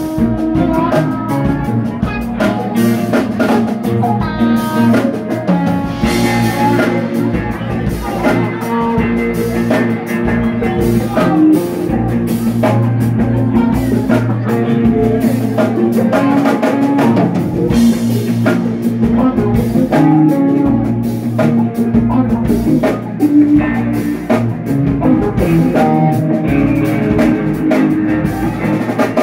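Live band playing with electric guitars, bass guitar, keyboard and a drum kit, the drums keeping a steady beat under the guitar lines.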